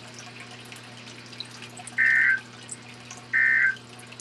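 NOAA Weather Radio EAS end-of-message (EOM) data bursts: two short two-tone digital SAME screeches about 1.3 seconds apart, marking the close of the required weekly test. Under them runs a steady low hum and hiss from the radio receiver.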